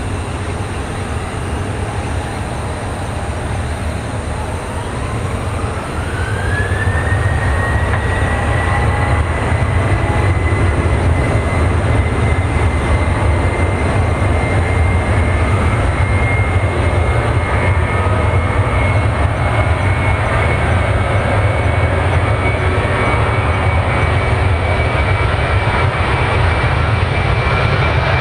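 Boeing 737-800's CFM56-7B turbofan engines spooling up to takeoff thrust: a whine rises in pitch over about three seconds, about four seconds in, and the sound grows louder, then the whine holds high and steady over a low rumble as the jet starts its takeoff roll.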